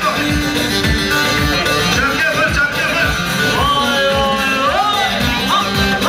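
Loud, amplified live halay dance music: a wavering sung or played melody over a steady drum beat.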